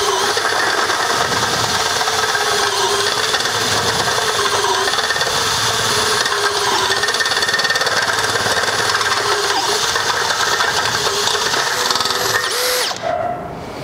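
Makita HP001G 40V cordless hammer drill boring into hard concrete with a 7/8-inch masonry bit, running loud and steady under load. It stops abruptly about 13 seconds in.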